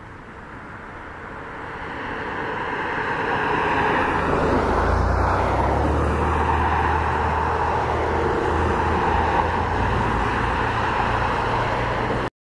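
Road traffic going by close by: vehicle noise builds over the first few seconds into a steady loud rush with a low rumble, then cuts off suddenly near the end.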